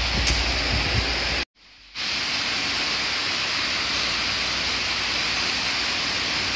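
Steady hiss-like background noise, broken by a half-second drop to silence about one and a half seconds in.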